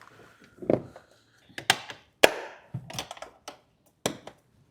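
A run of separate sharp clicks and knocks, the loudest about one and a half and two seconds in, with a duller thud near the start: the sound of parts being handled and fitted by hand.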